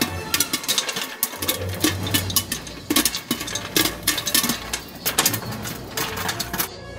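Rapid, irregular clicking and rattling over a low steady hum, stopping abruptly near the end.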